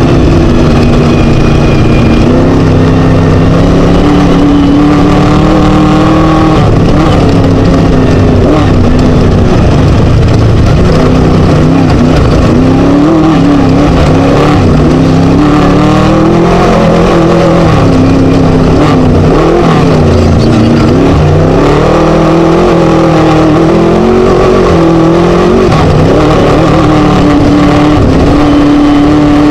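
Class 1 desert race buggy's Scat engine running hard under race load, very loud, its revs rising and falling over and over as the driver gets on and off the throttle.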